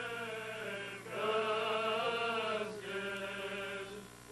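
A man's voice chanting in Armenian liturgical style, long held notes with gentle bends in pitch, phrased in a few sustained lines with short breaks about a second in and again near three seconds.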